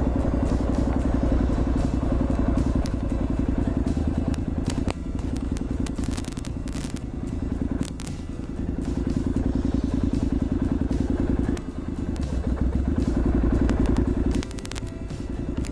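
Motorcycle engine running under way, a dense low pulsing note that eases off and picks back up several times, with scattered clicks over it.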